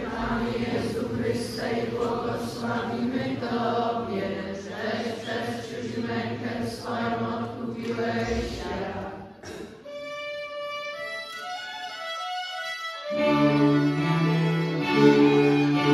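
Children's choir singing with violins and a cello. About nine seconds in the singing stops and a single high line steps downward, then the violins and cello play together with a strong low bass part.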